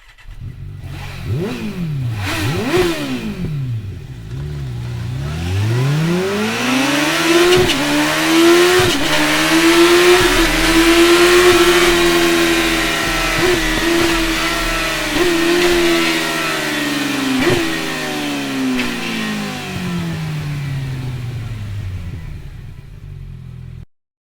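Kawasaki Ninja ZX-14R (ZZR 1400) inline-four motorcycle engine revving: two quick throttle blips, then a long run-up that holds at high revs through the middle and slowly winds back down, with a few short sharp clicks along the way. The sound cuts off abruptly near the end.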